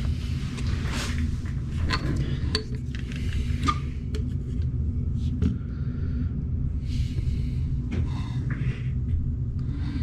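Light clicks and rustles of small plastic drones being handled and turned over, over a steady low rumble.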